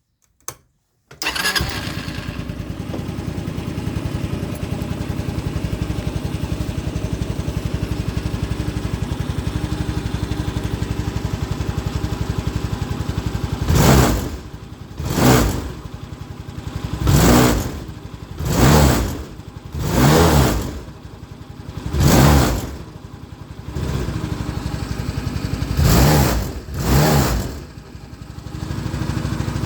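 Honda CN 250 Helix scooter's single-cylinder four-stroke engine starting about a second in and idling, then revved eight times in short blips from about halfway through before settling back to idle. The owner suspects engine damage from the noises and vibration.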